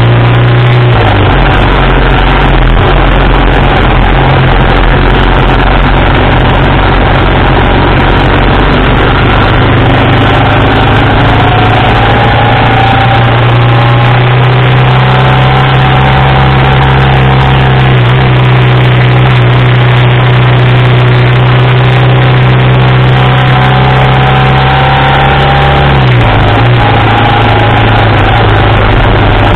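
1987 BMW R80RT's air-cooled flat-twin engine running under way, loud and steady, mixed with heavy wind noise. The engine note shifts about a second in and again near the end.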